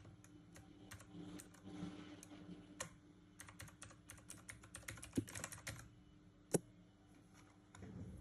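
Typing on a JeDEL WKL-102 mechanical keyboard: scattered keystrokes, then a quick run of typing in the middle, and a single loud key strike about two thirds of the way through.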